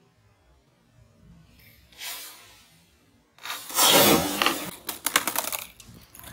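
Skateboard wheels rolling on pavement, followed about five seconds in by a quick run of sharp clacks as the board hits the ground during a trick attempt.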